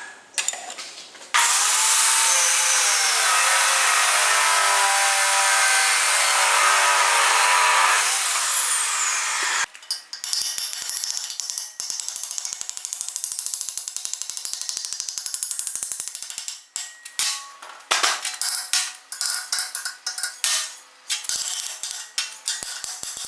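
A power tool runs loudly with a steady whine for about seven seconds, then winds down and stops. After that come irregular knocks and scraping of hand work on metal parts.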